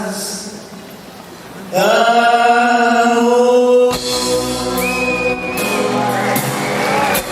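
Brazilian MPB song: a woman singing, with instrumental accompaniment. After a quieter first second or so, she holds one long loud note for about two seconds, and the band then carries on.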